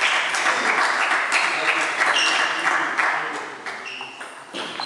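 Table tennis hall: voices and a dense spell of noise in the first few seconds, with the short pings of celluloid table tennis balls striking tables. A few more pings come near the end.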